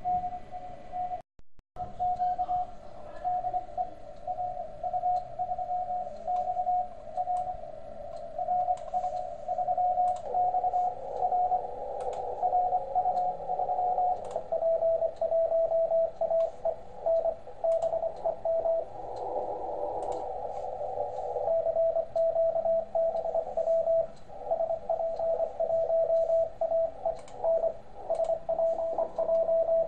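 Morse code (CW) received on the 40 m amateur band through the Softrock Ensemble II software-defined radio, heard as a keyed tone near 700 Hz over narrow-filtered band hiss, with a few faint clicks. About halfway through, the tone steps a little lower in pitch and the keying pattern changes as the receiver is retuned to another station.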